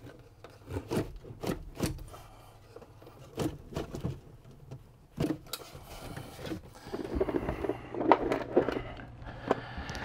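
Wooden cabinet drawer on metal telescoping slide rails being pulled out and handled: scattered clicks and knocks, then a few seconds of rubbing and scraping from about seven seconds in.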